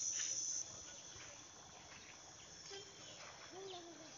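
Insect buzzing, high and steady, that cuts off abruptly about half a second in. Then faint forest ambience with a couple of short, low pitched calls near the end.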